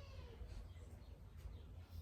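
Birds calling: a short call falling in pitch at the start, then a few brief high chirps, over a low steady rumble.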